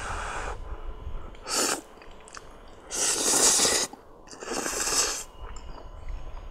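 A man slurping extra-spicy stir-fried instant noodles in four noisy, hissing pulls, the longest and loudest about three seconds in.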